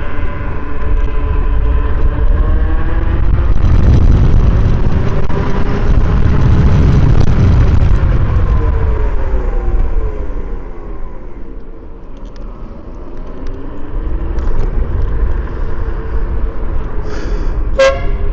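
Wind and road rumble from riding a 72-volt Yume Predator electric scooter, with a faint motor whine that falls in pitch as the scooter slows about two-thirds of the way through, then rises again as it picks up speed. A short blast of an electric air horn comes near the end.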